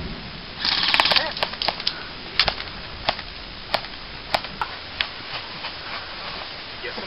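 Airsoft guns firing: a rapid burst of shots about half a second in, then a string of single sharp snapping shots roughly every half second to second.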